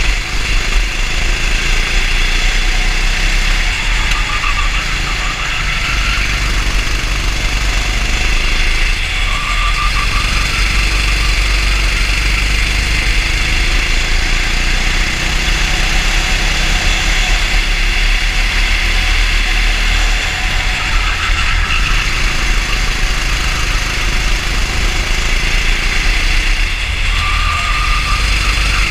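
Racing go-kart engine running continuously under load, heard from a camera mounted on the kart, with a steady low hum and an even hiss over it. A short higher tone comes in briefly a few times.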